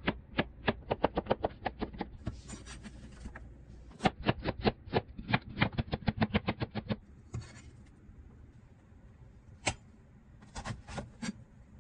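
Santoku knife chopping vegetables against a cutting board: quick runs of sharp knocks, about six a second, as it slices zucchini and cuts carrot into matchsticks. Near the end come a few slower single cuts through the base of an enoki mushroom cluster.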